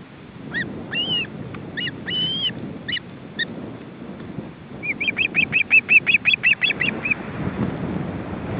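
Ospreys calling: a few separate short high calls in the first three seconds, then a fast run of about a dozen short notes, around six a second, near the middle. Wind rumbles on the microphone throughout.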